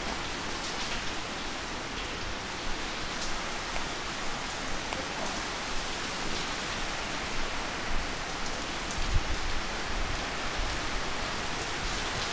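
Heavy rain falling steadily on pavement and surfaces, an even hiss with scattered sharper drip ticks. A few low bumps come near the nine-second mark.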